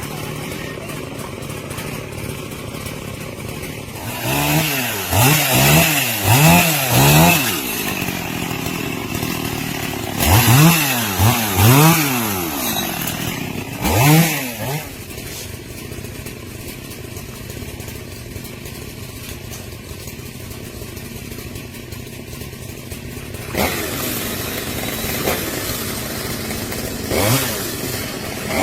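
Chainsaw engine idling, revved up and let back down in short bursts: three quick revs in a row, then three more, a single one, and another near the end.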